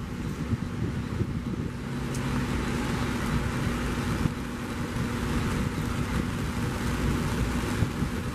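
Airbus A330-243F freighter's Rolls-Royce Trent 700 jet engines running at low taxi power: a steady jet noise with a low, even hum.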